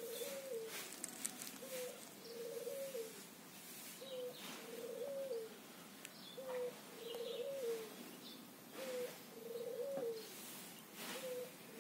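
A dove cooing over and over, each call a short note followed by a longer rolling coo that falls away at the end, repeating about every two and a half seconds. Faint high chirps of small birds behind it.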